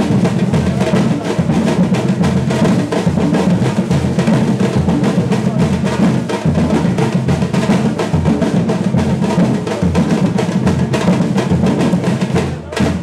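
Batucada ensemble of Brazilian percussion playing a dense samba groove: deep surdo bass drums under rolling snare drums. The playing drops back briefly near the end, as at a break.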